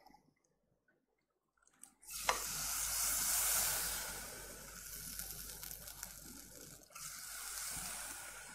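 Near silence for about two seconds, then a click and a steady hiss of running liquid. The hiss swells, eases off and dips briefly near the end.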